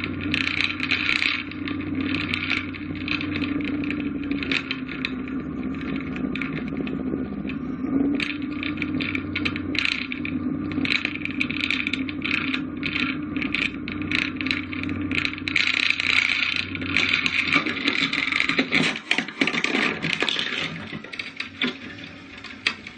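Light aircraft's piston engine running, heard from inside the cockpit, with rattling and scraping over the drone. About nineteen seconds in the engine drone dies away amid irregular clattering as the plane crashes on landing, and the sound drops to scattered rattles.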